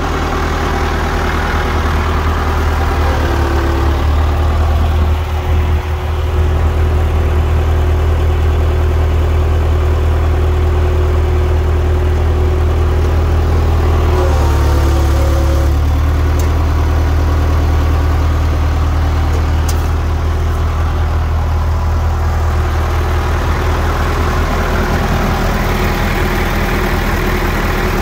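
1972 International 574 tractor's engine running steadily at idle, briefly louder about halfway through.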